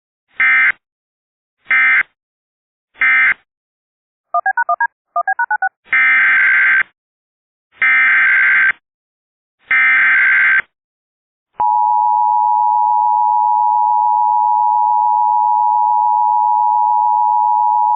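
Emergency Alert System signalling. Three short bursts of data tones mark the end of the previous alert. After a brief run of quickly alternating beeps, three longer bursts of data tones carry the header of the next alert. At about two-thirds of the way through, the steady two-tone EAS attention signal starts and holds.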